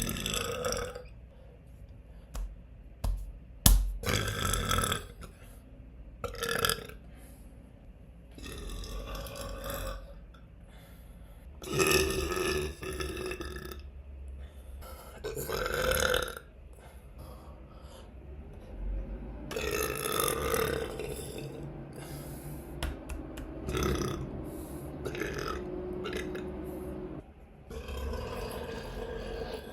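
A person burping uncontrollably, one burp after another. There are more than a dozen at irregular gaps of a second or two, some short and some drawn out, with a sharp loud one about four seconds in.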